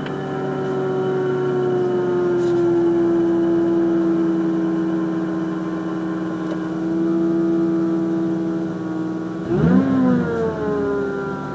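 Mazda RX-8's Renesis rotary engine running just after a cold start with a steady, high whine over the idle. About nine and a half seconds in, a quick rev blip sends the pitch up, then it eases back down. The owner never traced the whine; some put it down to changed oil flow.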